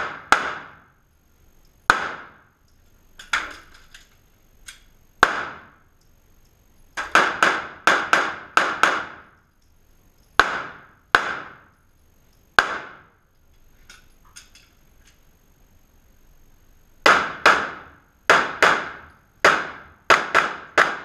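Handgun shots fired in an indoor range, about two dozen, many in quick pairs, each followed by a short echo off the hall.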